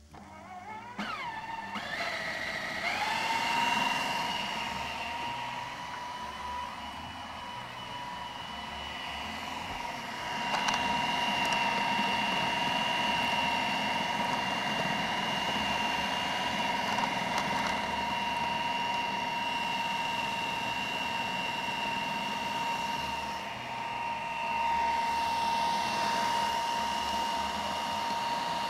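Food processor motor spinning up with a rising whine, then running steadily as it grinds minced meat, soaked bulgur, onion and spices into a smooth kibbeh paste. It grows louder about ten seconds in.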